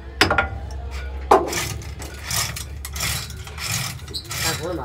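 Metal knocks and scraping from a heavy tipper's hydraulic jack cylinder being worked into its mounting bracket: two sharp knocks, then a run of rasping scrapes about every two-thirds of a second.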